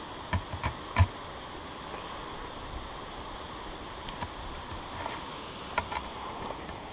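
Footsteps knocking on a rocky trail: three sharp steps in the first second, the last the loudest, then a few fainter ones. A steady rushing hiss runs underneath.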